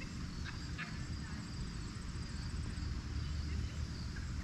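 Crickets chirring steadily in a high, even drone, over a low rumble of wind on the microphone that swells a little past the middle, with two brief high chirps about half a second in.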